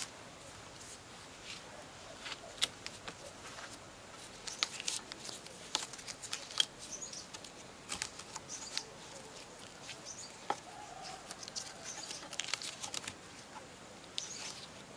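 Faint, scattered sharp clicks and short scratchy rustles of wire being handled and fastened onto bamboo trellis poles.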